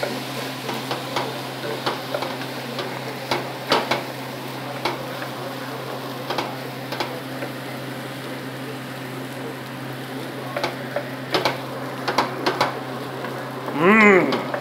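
Wooden spoon stirring and scraping fried rice around a nonstick pan, with irregular scrapes and taps over the sizzle of the rice frying with freshly added soy sauce.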